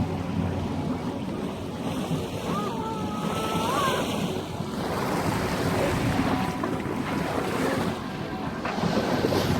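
Wind buffeting the microphone over the rush of water along the hull of a sailboat under way, a steady noisy wash.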